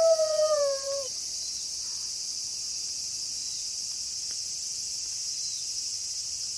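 A wolf's long howl held on one pitch, sliding down and ending about a second in, over a steady high-pitched chorus of crickets that carries on alone afterwards.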